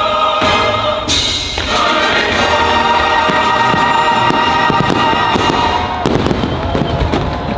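Fireworks bursting over choral music, with a quick run of bangs near the end.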